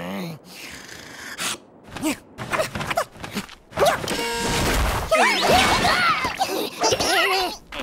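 Cartoon soundtrack of music and comic sound effects: a heavy thud about five seconds in, followed by squeaky character vocalizations that slide up and down in pitch.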